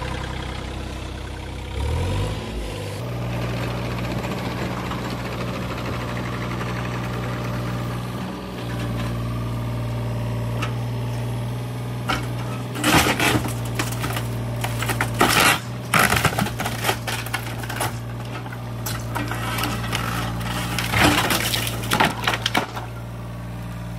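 Yanmar mini excavator's diesel engine running steadily, throttled up about two seconds in. From about halfway there are several bursts of wood cracking, splintering and crashing as the bucket tears down the front of an old wooden garage.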